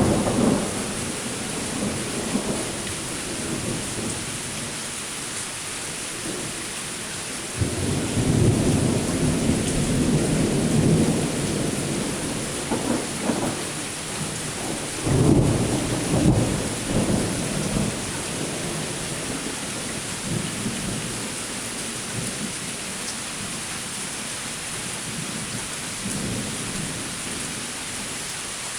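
Thunderstorm: steady rain hissing, with rolling thunder. There is a clap right at the start, a long rumble beginning about eight seconds in, and another rumble about fifteen seconds in.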